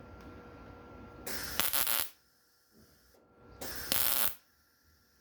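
Two short crackling tack welds on a car's rear quarter patch panel, each under a second, bridging the gaps between patch and panel.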